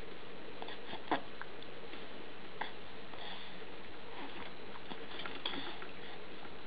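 A baby's soft breathing and small mouth noises over a steady background hum, with a few brief clicks, the sharpest about a second in.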